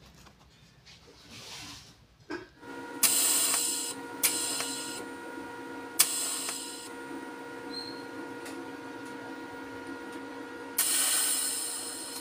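Electric welding arc on a workpiece turning on a welding positioner. A steady electric hum with several fixed tones sets in about 3 seconds in, and the arc hisses and crackles in four sudden loud bursts, the longest near the end.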